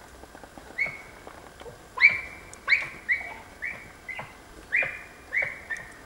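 Dachshund baying at a wild boar: a run of about nine sharp, high-pitched barks, starting about a second in.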